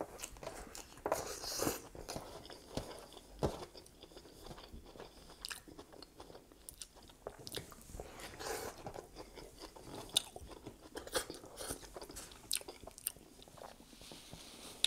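Close-miked chewing of a mouthful of McDonald's Big Mac: wet mouth sounds with small crunches and irregular clicks and smacks.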